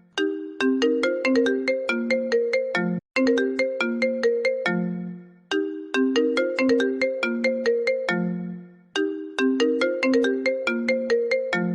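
Phone ringtone: a short melody of quick, struck bell-like notes that plays four times. Each time it ends on a lower held note that fades out before the phrase starts again.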